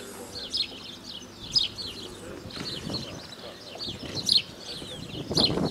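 Small birds chirping: many short, quick high chirps overlapping one another without a break.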